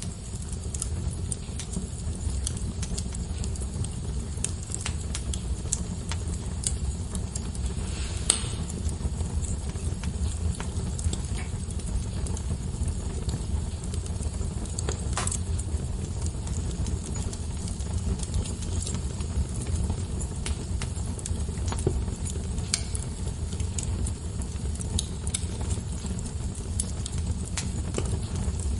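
Fire burning in a fireplace: a steady low rumble of flame with frequent light crackles and a few sharper pops, at about 8, 15 and 23 seconds in.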